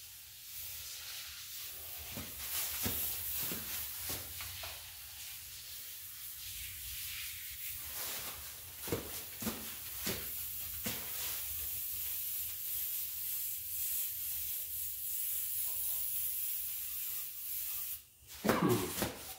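Aerosol can of oven cleaner spraying degreaser onto a greasy engine block, a steady hiss with a few light knocks. A brief louder sound comes near the end.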